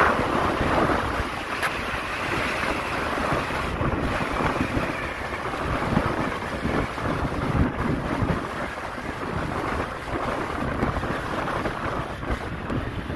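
Wind rushing over the microphone of a moving vehicle, over a steady rumble of road noise.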